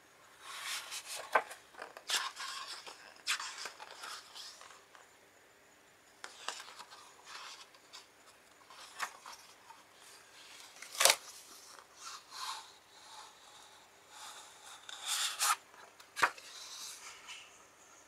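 Thick pages of a large book being turned by hand: papery rustling and swishing, with a sharp flap as each page falls, several times over. The loudest flap comes a little past the middle.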